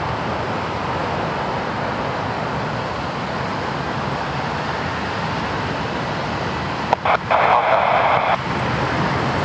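Airbus A319-133's IAE V2500 jet engines running with a steady rushing noise as the airliner begins its takeoff roll. A louder hiss lasts about a second and a half near the end.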